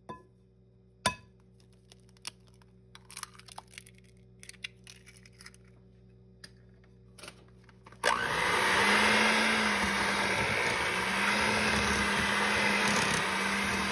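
A sharp crack about a second in, like an egg knocked on the rim of a bowl, then a few small taps and clicks. About eight seconds in, an electric hand mixer starts and runs steadily, its beaters whirring through creamed butter and sugar with an egg.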